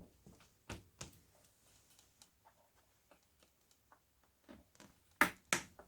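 Small plastic clicks and taps from handling a Dell Latitude 3380 laptop's case and internal parts during a RAM upgrade, with two sharper clicks in quick succession near the end.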